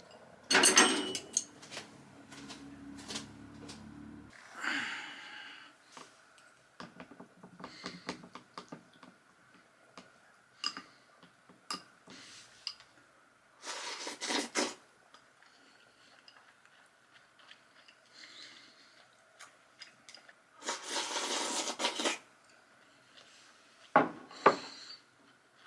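Dishes and utensils being handled: scattered clinks and knocks, with a short rushing hiss about halfway through and a longer one near the end.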